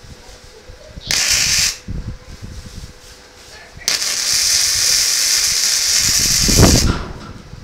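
MIG welder arc crackling and hissing: a brief strike of about half a second about a second in, then a steady run of about three seconds.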